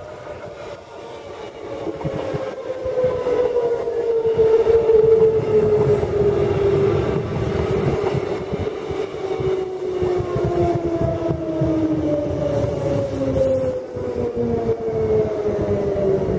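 Queensland Rail electric suburban train passing close by, its wheels rumbling on the rails. Several whines from its electric motors slide down in pitch as the cars go past, and the sound is loudest about four to five seconds in.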